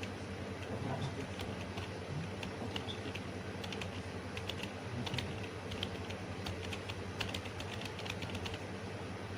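Typing on a computer keyboard: irregular, quick keystroke clicks throughout, over a steady low hum.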